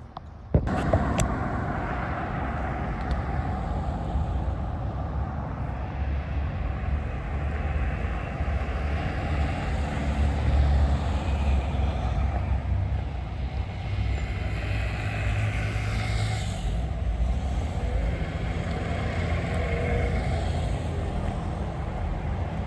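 Street traffic: motor vehicles running and passing, heard as a steady low rumble that swells and eases, starting abruptly about half a second in.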